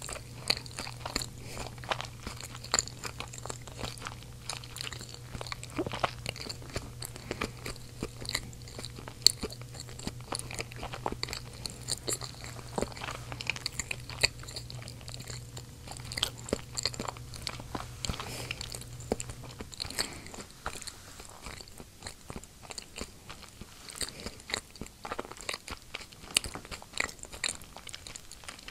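A child chewing seasoned potatoes close to a microphone, with many small irregular mouth clicks and smacks.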